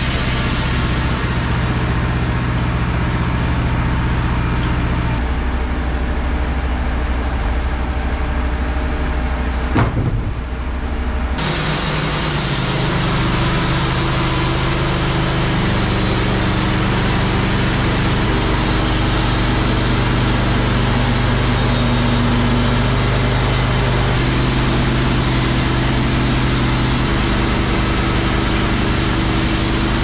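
Wood-Mizer LT15 Wide band sawmill running at a steady engine speed. About ten seconds in there is a brief knock, and a second or so later the hiss of the band blade cutting through the pine log rises over the engine and carries on.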